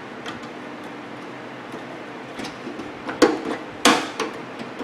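Sharp clicks and knocks of parts being put back in place on a microwave oven after its door micro switch has been replaced. The two loudest come about three and four seconds in.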